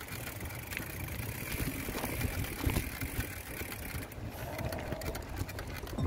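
Mountain bike rattling and clattering over rocky ground, with irregular knocks over a steady low rumble.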